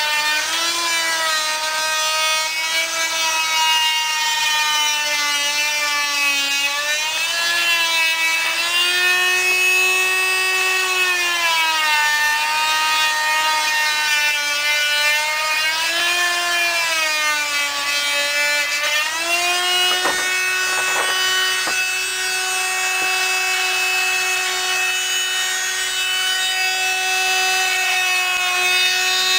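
Electric power saw running continuously and cutting wood, its motor pitch sagging and recovering every few seconds as the blade is loaded, with a few knocks about two-thirds of the way in.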